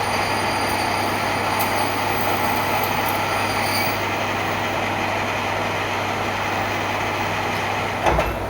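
A machine running steadily with a constant low hum and a faint high whine that fades about halfway through, with a short thump near the end.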